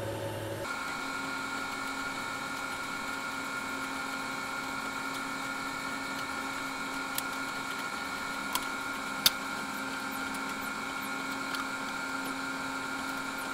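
A steady mechanical hum made of several held tones, running without change, with a few faint light clicks about two-thirds of the way through.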